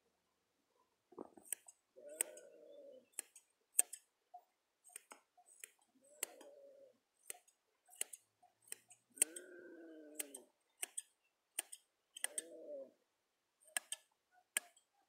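Sharp clicks, about one or two a second, as a sheep's horn is sawn through with a wire saw. The restrained horned sheep bleats four times, each call about a second long.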